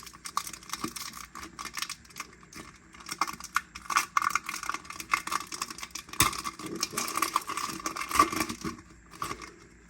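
Foil trading-card pack being torn open and handled: crackling, rustling foil wrapper with many sharp crinkles, busiest in the middle and tailing off near the end.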